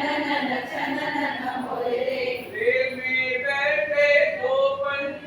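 Voices singing a Hindi action song, holding and gliding between sustained notes in a chant-like melody.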